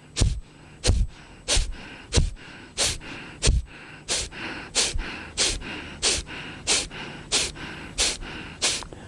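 Kapalbhati pranayama: a person's sharp, forceful exhalations through the nose, one short stroke after another at an even pace of about three every two seconds.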